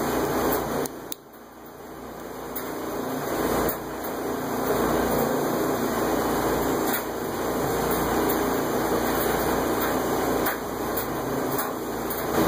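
Steady hiss of background room noise, dipping briefly about a second in, with a few faint clicks as the small metal parts of an RC landing-gear retract are handled.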